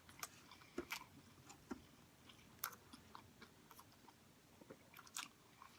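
Faint close-up chewing of a fast-food meal: irregular soft mouth clicks and smacks, a few a second, with a couple of louder ones near the middle and near the end.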